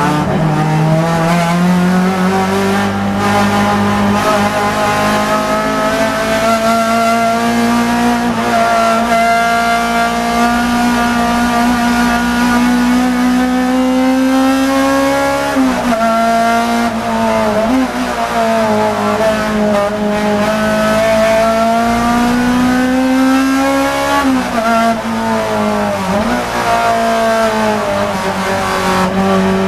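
Engine of a 2-litre touring race car heard from inside the cockpit, running hard under load. The note climbs slowly for most of the first half, then drops and picks up again several times in the second half as gears change and the car brakes and accelerates through corners.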